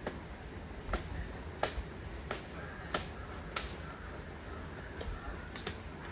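Sharp strikes on wood at an even pace, about three every two seconds, growing fainter after about four seconds in.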